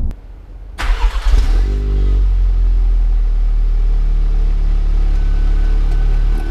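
Volkswagen Mk7 Golf R's turbocharged 2.0-litre four-cylinder engine cold-starting: under a second in it catches with a loud flare of revs, the revs fall back over the next second or so, and it settles into a steady idle.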